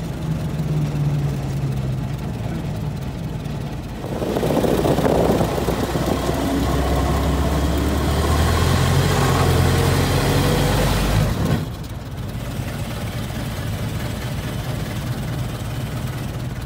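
1923 Ford Model T's four-cylinder engine running as the open touring car drives along. It grows louder about four seconds in and drops back suddenly about eleven seconds in.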